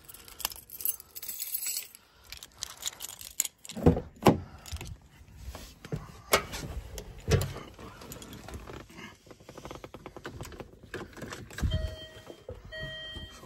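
Car keys jangling, with knocks and thumps as someone climbs into a Land Rover Freelander 2. About 12 seconds in, a repeated electronic beep starts, short tones with brief gaps between them.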